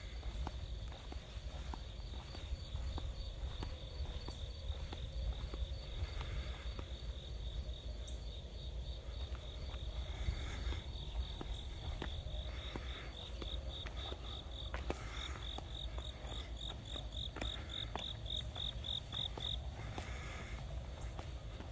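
Insects chirping in fast, even pulses, one high-pitched train loudest in the second half and stopping a couple of seconds before the end. Under it are a steady low rumble on the microphone and scattered light footsteps on pavement.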